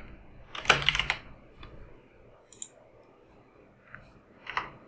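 Computer keyboard typing: a quick run of keystrokes about a second in, then a few single clicks spaced apart, and another short run near the end.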